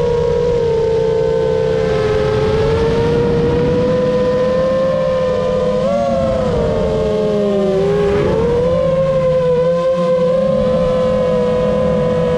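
A motor running with a steady, high droning whine over a low rumble; the pitch sags about seven to eight seconds in and then comes back up, as with a change in load or speed.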